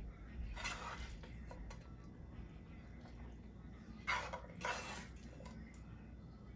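Kitchen handling sounds of a utensil on a dish: three short scraping rustles, one about half a second in and two close together around four seconds in, with a few faint clicks between.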